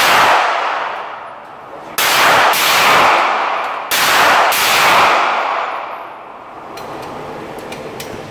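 10 mm semi-automatic pistol firing in an indoor range: one shot right at the start, then two more about two seconds apart, each followed by a long ringing decay from the enclosed lane.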